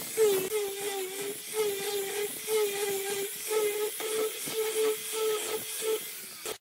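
Angle grinder with a sanding disc working along a wooden strip: a steady high motor whine that dips briefly every second or so as the disc is pressed and moved along the wood, over the hiss of the abrasive on the wood.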